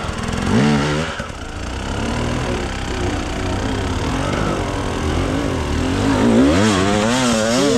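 Enduro motorcycle engine revving up and down over and over under throttle, the pitch wavering quickly and loudest in the last couple of seconds.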